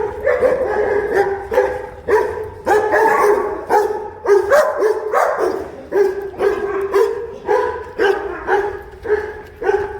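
A dog barking over and over, a steady run of short pitched barks at about two a second.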